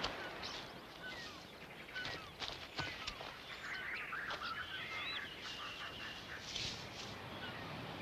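Assorted birds chirping and calling: scattered short chirps, clicks and quick warbles over a faint steady hiss.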